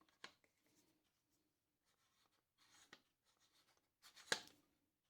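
Near silence with a few faint clicks and rubs from a router's plunge base being handled, including one sharper click a little over four seconds in.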